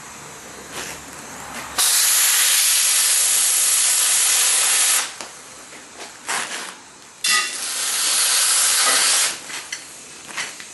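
Oxy-fuel cutting torch cutting steel: a loud hiss switches on abruptly for about three seconds, then again for about two, with short spurts between, over a softer steady hiss.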